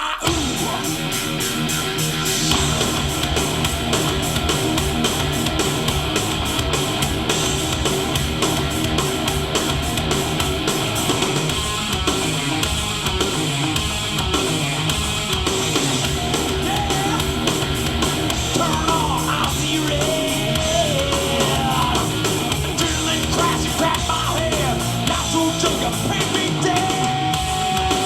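Rock track with electric guitar, drums and a singing voice, played back loud through a Beta3 R8P portable PA speaker and picked up by the recording microphone.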